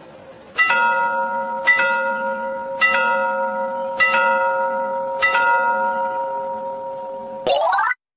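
Railway crossing signal bell (genta) struck five times, about one strike a second, each strike ringing on and fading: the signal that a train is approaching. Near the end a short sound effect rises quickly in pitch and cuts off.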